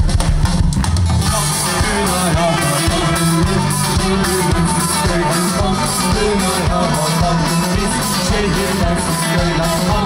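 A live band playing with electric guitar and a drum kit keeping a steady beat; the full band sound with cymbals fills in about a second in.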